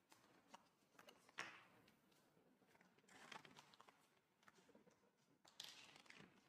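Near silence, with faint handling sounds of a deflated PVC gym ball: soft crinkles of the vinyl and a few small plastic clicks as the valve plug and foot-pump hose are worked at the valve.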